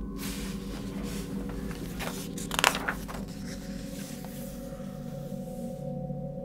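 Paper rustling as the pages of a bound thesis are handled and turned, with a sharper crinkle about two and a half seconds in, stopping near the end. Under it, a low steady drone of background music.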